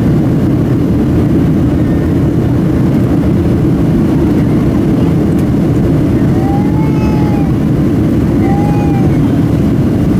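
Steady cabin roar of a Boeing 737-700 in flight, from its CFM56 engines and the air rushing past the fuselage. About six seconds in, two short rising-and-falling cries sound over it.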